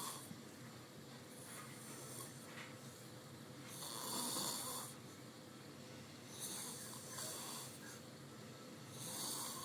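A woman snoring in her sleep, slow and regular, with four rasping snores about two and a half seconds apart; the one a little after the middle is the loudest.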